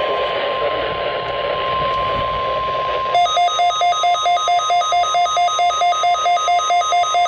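Weather alert radio: static hiss with a steady single alert tone, then about three seconds in a fast electronic alarm beeping of two tones at once, about five beeps a second, signalling an incoming warning.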